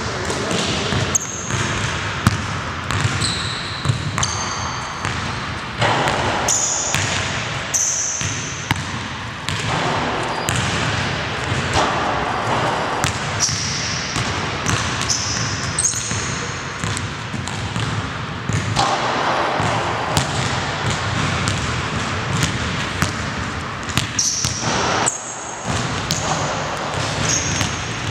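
A basketball bouncing and dribbling on a hardwood gym floor, with repeated short high-pitched sneaker squeaks, echoing in the gym.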